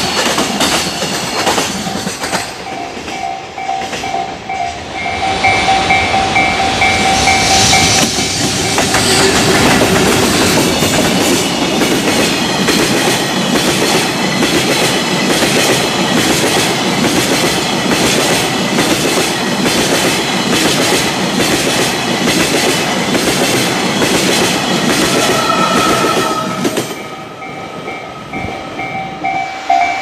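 Loud freight wagons rolling past, container flatcars and then tank wagons, their wheels clattering over rail joints in a steady repeating rhythm of heavy clicks. A Japanese level-crossing bell dings in a fast repeated pattern at the start, and again near the end as the clatter dies down.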